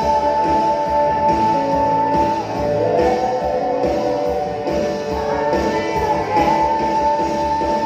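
Worship band music with guitar and sustained held notes, playing steadily.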